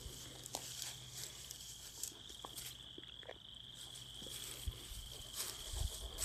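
Faint, steady, high-pitched insect chirring, with scattered light ticks and rustles.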